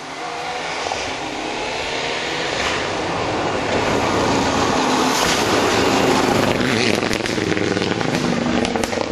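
Rally car approaching at speed with its engine running hard, growing louder as it closes in and passes, then pulling away. A few sharp cracks come near the end.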